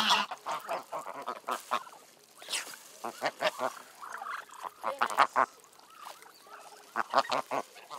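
A mixed flock of domestic geese and ducks calling in short, irregular honks and quacks as they feed.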